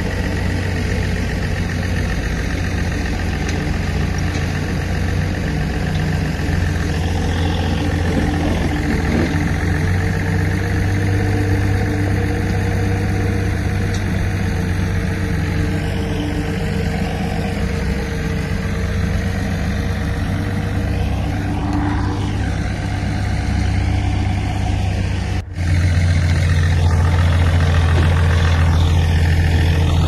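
Crawler bulldozer's diesel engine running steadily, a deep continuous hum. About twenty-five seconds in it drops out for an instant, and afterwards it is louder.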